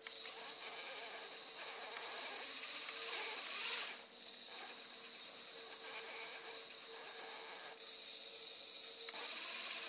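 Sensorless brushless outrunner motor (Tacon Bigfoot 15, 950 kV) driven by a Hobbywing EZRUN 60A ESC, turning the crawler's wheel at the lowest throttle it will hold. The sound is a steady high-pitched electronic whine with hiss, coming in suddenly, with a short dip about four seconds in. This is the motor controller's whine at very low speed, showing smooth low-speed control without jerking.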